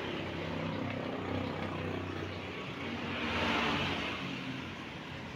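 A vehicle engine running steadily; it grows louder to a peak about three and a half seconds in, then eases off.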